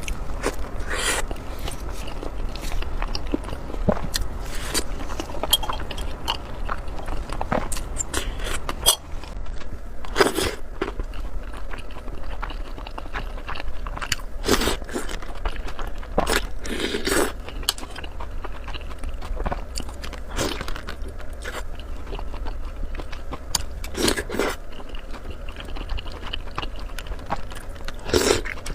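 A person eating close to the microphone: bites and chewing, with a louder crunching bite every few seconds among softer mouth and chewing noises.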